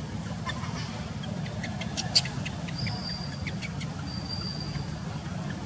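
Outdoor background noise: a steady low hum like a distant engine, with scattered light clicks, one sharp click about two seconds in, and two short, steady, high-pitched whistles near the middle and end.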